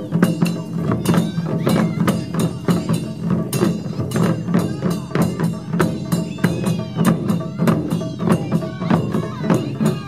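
Japanese taiko drum ensemble playing: many drums struck together in a steady, fast rhythm, with shoulder-slung drums and barrel drums on stands.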